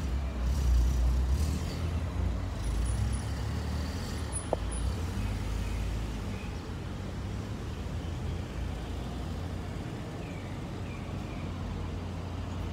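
A road vehicle running: a steady low rumble of engine and road noise.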